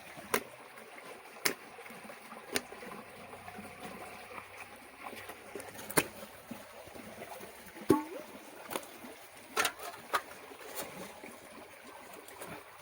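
Faint trickling and splashing of water, with about ten scattered sharp clicks and taps, as a cloth-covered pot fish trap is handled and opened.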